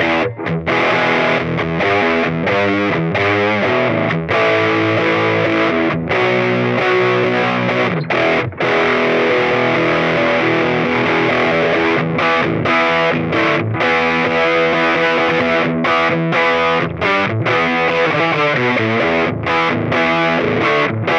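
Electric guitar (Gibson SG) played through a red EarthQuaker Devices drive pedal, giving a distorted tone. A riff runs throughout, broken by several brief stops where the sound cuts out for a moment.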